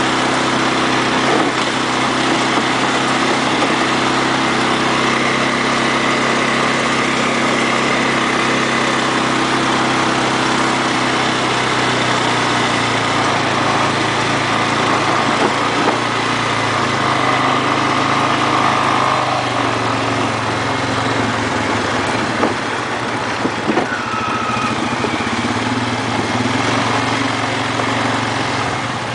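ATV engine running steadily, its pitch shifting a little as the throttle changes, with a few short knocks a little over three-quarters of the way through.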